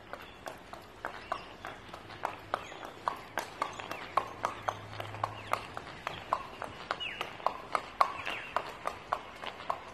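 A two-year-old thoroughbred filly's hooves clip-clopping at a steady walk on hard wet paving, about three sharp hoof strikes a second.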